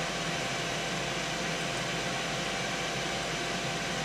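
Steady fan noise, an even rushing hiss with a faint constant hum under it.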